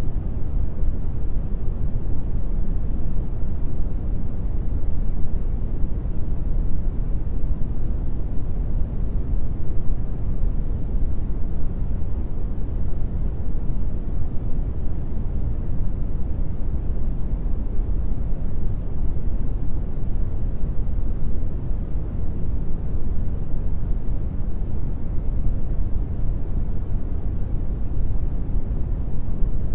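Steady brown noise: an even, deep hiss, strongest in the bass and fading toward the treble, with no changes or breaks.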